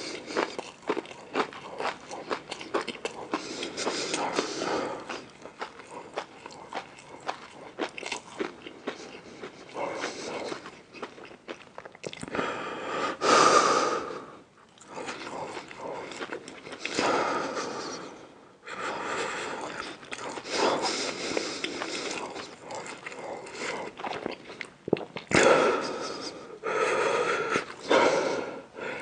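Close-miked eating sounds: biting and chewing with many small wet mouth clicks, broken by a few louder, longer noisy stretches.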